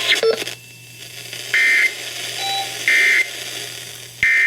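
Three short, buzzy bursts of NOAA Weather Radio SAME digital data tones from a weather radio's speaker, each about a third of a second long and about a second apart, starting about a second and a half in. They are the end-of-message code that closes the severe thunderstorm warning.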